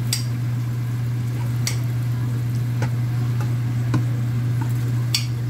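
Kitchen scissors snipping shishito peppers in a frying pan, about five sharp separate snips, over light sizzling. A steady low hum runs underneath.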